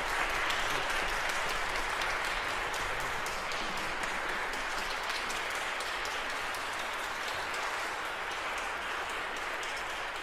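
Audience applauding, many hands clapping at once and easing off slightly toward the end.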